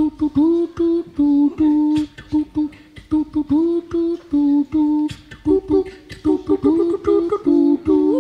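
A man humming short, rhythmic bass-like notes into a microphone with beatboxed clicks, building an a cappella loop on a live-looping station; a second, higher hummed line joins about five and a half seconds in.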